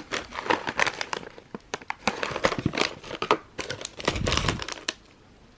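Plastic snack wrappers crinkling as they are handled, a dense run of irregular crackles that stops about five seconds in.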